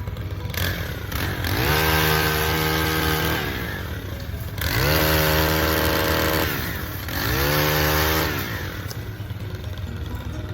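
Gas-powered pole pruner's small engine idling and revving up three times, each time holding at high speed for a second or two before dropping back to idle.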